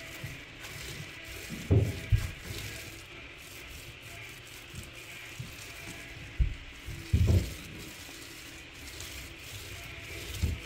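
Paint roller rolling wet paint across a door panel with a steady soft rasping swish, broken by a few short low thumps, the loudest about two seconds in and about seven seconds in.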